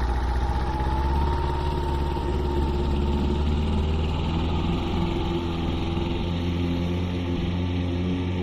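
A motor running steadily: a low drone with a fainter whine above it that drifts slightly in pitch.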